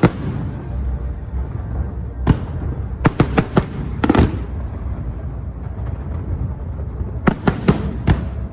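Aerial firework shells bursting in sharp bangs over a low continuous rumble. There is one bang about two seconds in, a quick run of four or five around three seconds, another near four seconds, and a cluster of bangs near the end.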